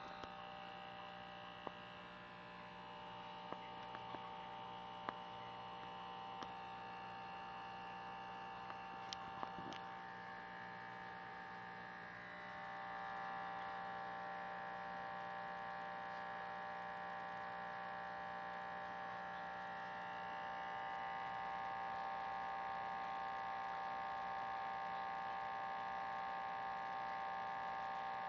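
Steady electric hum of a small aquarium filter motor, with a few faint clicks in the first ten seconds; it gets a little louder about halfway through.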